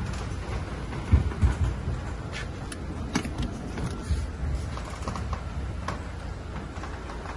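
Handling noise from a handheld camera moving about a car interior: a low rumble with two thumps about a second in and a few scattered clicks and knocks.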